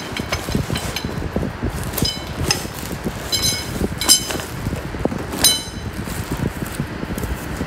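Metal frame tubes and hooks of a laundry sorter cart knocking and clinking against each other as they are handled in their plastic wrap. Several short ringing clinks, the loudest about four and five and a half seconds in, over a steady rustle of handling.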